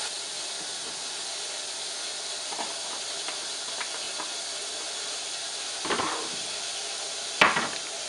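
Admiral top-loading washing machine filling: a steady hiss of water running into the drum, with two short knocks about six and seven and a half seconds in.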